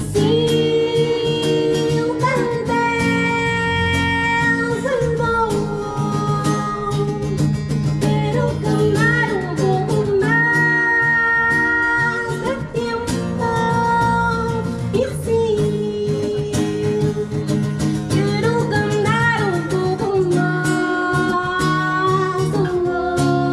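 Live acoustic duo: a woman singing long held notes that waver at their ends, into a microphone, over a strummed acoustic guitar.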